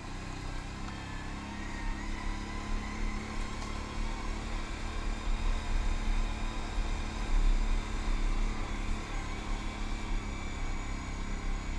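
ATV engine running at a fairly steady pitch while riding, with heavy low rumble underneath.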